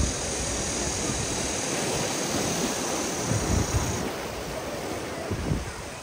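Ocean surf breaking in high waves, with wind buffeting the microphone in low gusts about halfway through and again near the end.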